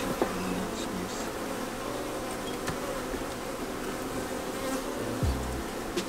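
Honey bees buzzing in a steady hum over an open hive box, with a few low bumps near the end.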